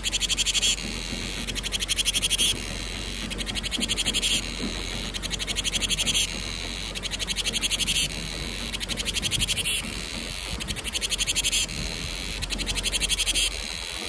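Cicadas singing: high-pitched phrases of rapid pulses, each about a second long and swelling before it cuts off, repeating roughly every two seconds over a steady high buzz.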